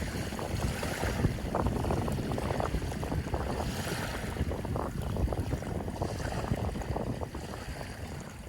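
Sea waves splashing and lapping in an irregular stream of small splashes, with wind rumbling on the microphone.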